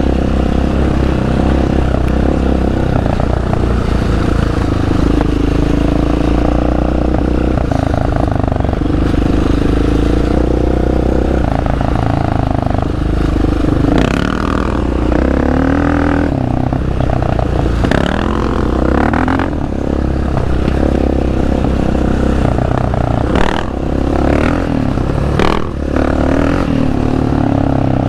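ATV (quad) engine running as it is ridden, its pitch rising and falling with the throttle, with rattling and several sharp knocks in the second half.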